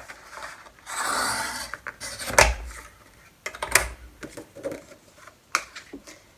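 Sheets of cardstock rustling and sliding against a plastic tab punch board, with two sharp clacks about a second and a half apart midway and a few lighter taps.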